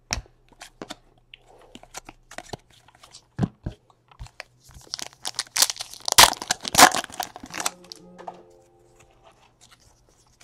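Shiny foil wrapper of a 2017 Donruss baseball card pack torn open and crinkled, loudest from about five to seven and a half seconds in. Scattered sharp clicks and snaps of cards being handled come before it.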